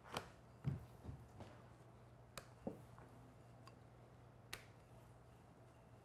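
Near silence over a faint low hum, broken by a handful of faint, sparse clicks and soft taps: a wooden rolling pin and a dough ball being handled on a silicone pastry mat.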